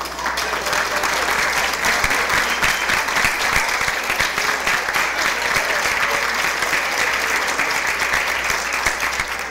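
Audience applauding, many hands clapping steadily. It builds just after the start and eases off near the end.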